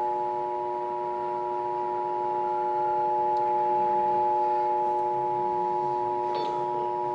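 Emergency Alert System two-tone attention signal: 853 Hz and 960 Hz sine tones sounded together in a steady tone over AM radio. It marks the start of an emergency alert message. Underneath are steady lower whistles and faint static from long-distance AM reception.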